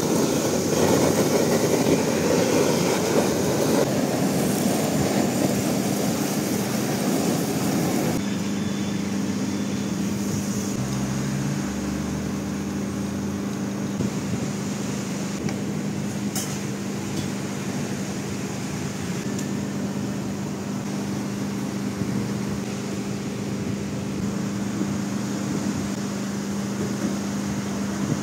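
Handheld kitchen blowtorch running with a steady rushing noise as it sears the salmon on a sushi roll, shut off abruptly about eight seconds in. After that only a steady low electrical hum of kitchen equipment remains.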